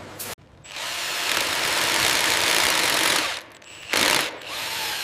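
A steady hissing rush of machine noise for about three seconds, like an air-powered tool, followed by two short bursts of the same hiss near the end.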